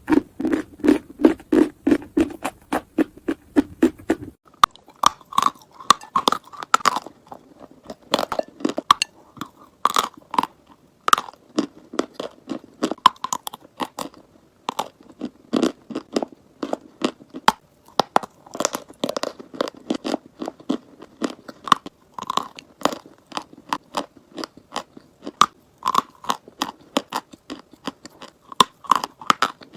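Close-up crunching and chewing of chalk: a fast, irregular run of sharp crisp crunches, a few every second. It is heavier and more even for the first few seconds.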